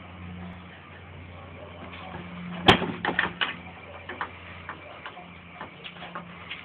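A sharp knock about two and a half seconds in, followed at once by a quick run of lighter knocks and then scattered clicks, over a steady low hum.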